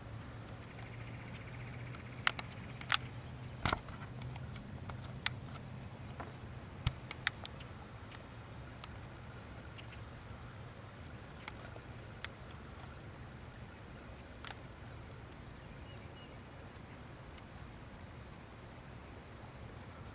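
Quiet woodland ambience with short, faint, high chirps every second or two and a scattering of sharp clicks and snaps, most of them in the first few seconds.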